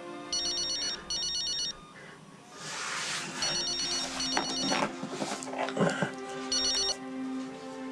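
Phone ringing with an electronic trilling ring in short bursts, two pairs and then one more, over soft background music.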